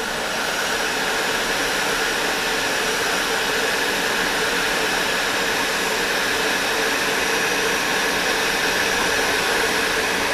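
Electric heat gun running steadily, blowing hot air onto heat-shrink tubing to shrink it over a soldered wire splice.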